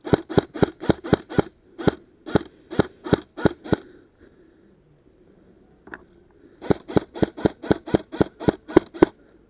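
Airsoft rifle firing a string of rapid single shots, about four a second, in two runs of roughly a dozen shots with a pause of about three seconds between them.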